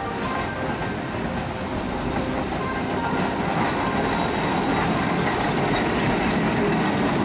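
A heritage electric tram running along its track, getting slightly louder as it goes.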